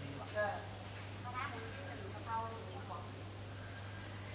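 Insects chirping steadily in a high, fast-pulsing drone, over a faint low hum, with a few faint short calls about halfway through.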